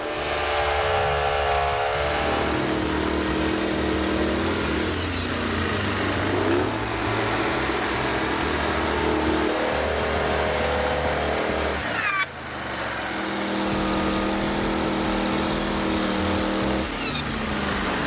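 Portable band sawmill running as its band blade saws through a log: a steady engine note with a few brief pitch dips. It breaks off for a moment about twelve seconds in, then the mill runs on.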